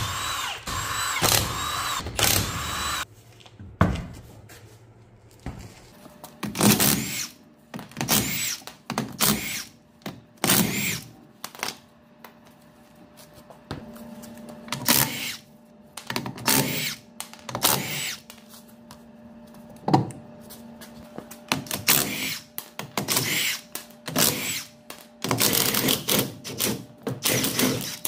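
A power tool run in short bursts of a second or two each, over and over, after a longer run of about three seconds at the start. A faint steady hum sits underneath from about six seconds in.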